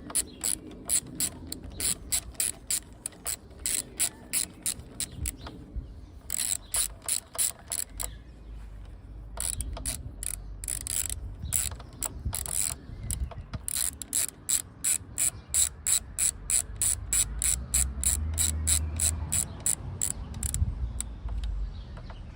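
Ratchet wrench clicking as it is worked back and forth, several clicks a second in runs separated by short pauses.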